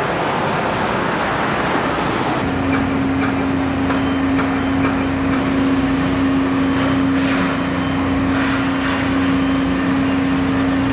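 Outdoor noise: a steady rushing, then from about two seconds in a steady low machine hum with scattered short knocks.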